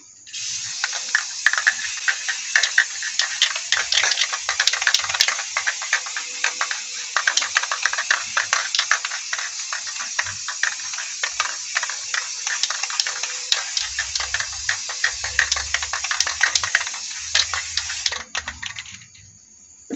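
Aerosol spray can of clear coat spraying in a long continuous hiss with a crackly spatter through it. It cuts off about 18 seconds in, followed by a couple of short spurts.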